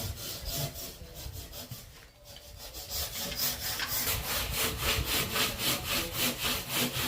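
Hand saw cutting through a Litepanel wall panel in rapid, even back-and-forth strokes, growing louder about three seconds in.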